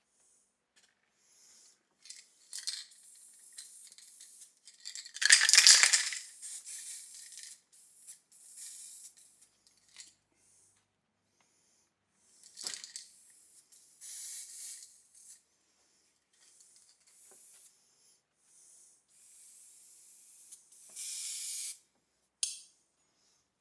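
Intermittent rattling, rubbing and clinking of small metal parts being handled, loudest about five seconds in, with a sharp knock about halfway through and another near the end.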